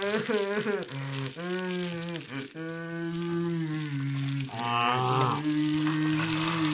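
Drawn-out, wavering voice-like sounds: long held notes with pitch slides, a short higher warble about five seconds in, then a steady low held tone.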